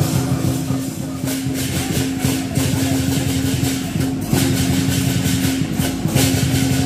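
Lion dance percussion: drum and cymbal strikes in a quick, uneven beat over a steady low drone.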